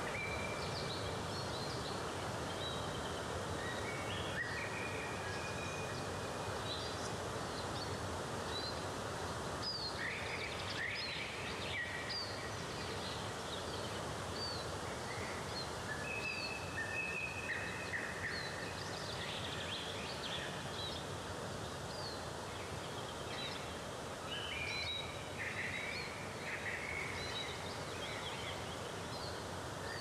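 Steady rush of a cascading waterfall, with birds chirping and whistling over it.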